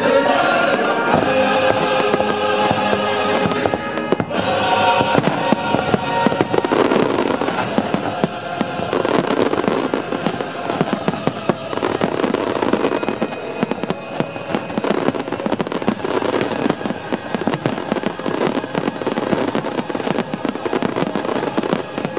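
Fireworks finale barrage: a dense, continuous run of aerial shell bursts and crackling stars, the bangs coming so fast they merge. A musical soundtrack plays along for the first several seconds, then gives way to the fireworks alone.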